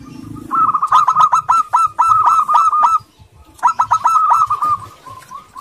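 Zebra dove (local perkutut) cooing: a fast run of short, clipped coos lasting about two and a half seconds, then after a brief pause a shorter run that trails off faintly.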